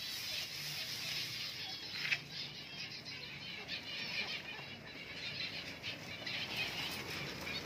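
Many aviary finches chirping and twittering, with the rustle of dry grass nesting material being handled and one brief sharper sound about two seconds in.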